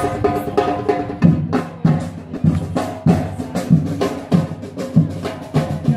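Drum group playing outdoors: after about a second of pitched music, a steady beat of deep drum strokes roughly twice a second takes over, with lighter sharp stick hits between them.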